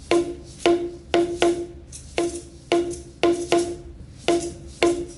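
Rhythmic percussion: sharp strokes in an uneven pattern, about two or three a second, each with a short pitched ring.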